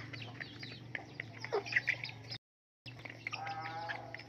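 Hens pecking grain off a stone slab, a quick, irregular patter of beak taps, while puppies feed alongside. A drawn-out wavering animal call comes about three seconds in, and the sound drops out briefly just before it.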